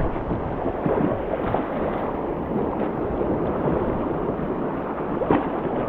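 Wind buffeting the microphone over the rush of surf washing against the reef, a steady noise with a few brief louder splashes.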